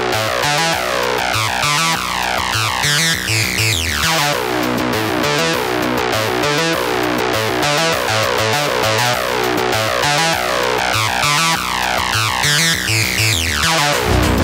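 Upbeat electronic background music with synthesizer and keyboard over a steady rhythm, with a falling swoosh sweep about three seconds in and again near the end.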